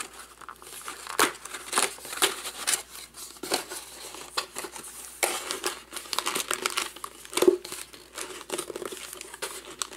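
Cardboard of a trading-card hobby box being handled and opened: irregular scrapes, rustles and crinkles as the inner box is lifted out and its folded cardboard sleeve is pulled open, with a louder crinkle about seven and a half seconds in.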